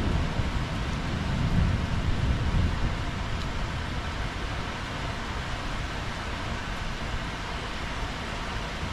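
Rain falling steadily, an even hiss, with a low rumble in the first few seconds that fades away.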